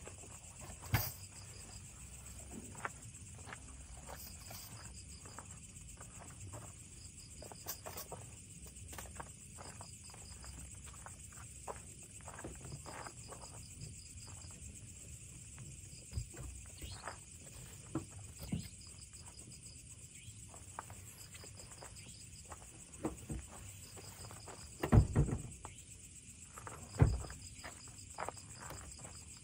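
Night insects chirping in repeated short trills over a steady high hiss. Over this come knocks, rustles and thuds of bags and camping gear being handled at a car's open boot. Near the end there are two louder thumps.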